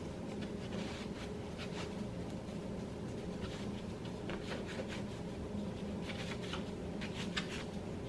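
Hands rolling and pressing bread dough into a log on a floured wooden cutting board: faint, irregular scuffing and rubbing, over a steady low hum.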